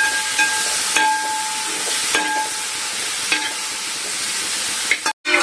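Chicken pieces sizzling in a pan of fried masala and tomato while a spoon stirs them, the spoon scraping the pan with short squeaks about once a second.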